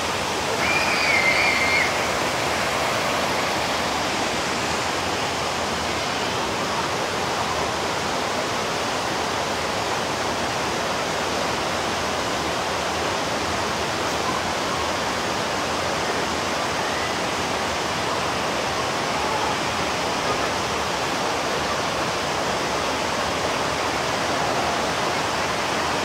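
Steady rushing of the Kulen Mountain waterfall and the rocky stream below it, an even wash of falling water. A brief high call rings out about a second in.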